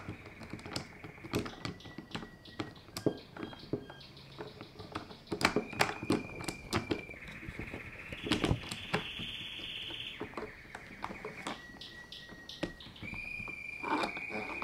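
Light metal clicks and clinks of a saw chain being handled and fitted back onto the bar of a small battery pruning saw. Over them a songbird trills in the background, in high steady runs a second or two long that change pitch from one run to the next.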